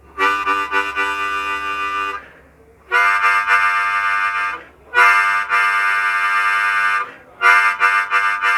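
Diatonic harmonica in C playing four held chords with short breaths between them, alternating between blowing and drawing so the chord changes from one to the next.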